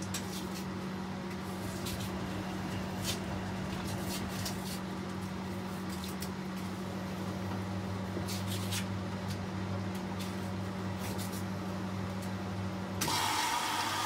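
Hotpoint Liberator 1826 washing machine running mid-cycle: a steady low hum with scattered light clicks. About a second before the end the hum stops and a louder, hissier running sound takes over.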